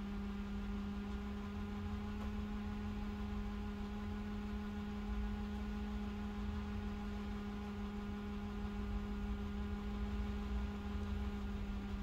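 Akai CS-703D cassette deck rewinding a tape: a steady, even hum from the transport motor and spinning reels.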